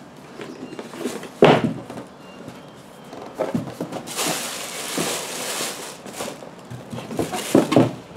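Cardboard shoe box being handled: a sharp thump about a second and a half in, a papery rustle of the tissue paper inside in the middle, and a few knocks of the box near the end.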